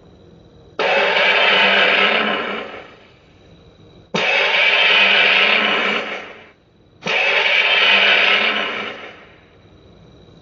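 Gorosaurus kaiju roar sound effect, heard three times: each harsh roar starts suddenly and fades out over about two and a half seconds.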